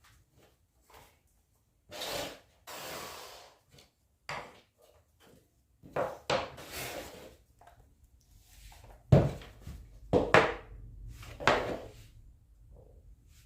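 Pieces of wood being handled in a workshop: stretches of scraping and sliding, with sharp knocks in between. The loudest three knocks come in the second half.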